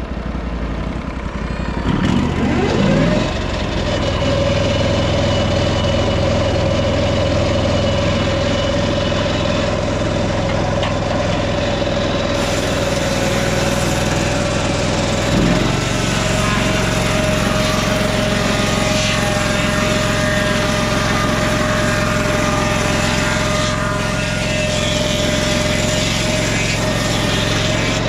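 Lucas Mill swing-blade sawmill's 18 hp Briggs & Stratton Vanguard V-twin engine revs up from a lower speed about two seconds in, then runs steadily at high speed as its circular blade cuts along a lodgepole pine log. The pitch shifts briefly about halfway through.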